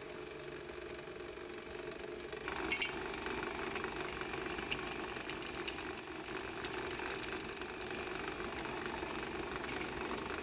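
Drill press motor running steadily while its bit drills through a knife's steel tang and then the wooden handle scales, the sound getting fuller about two and a half seconds in, with a few light clinks.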